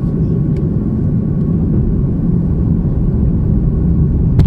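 Steady low rumble of an airliner cabin in flight, with a faint steady hum above it. A single sharp click sounds near the end.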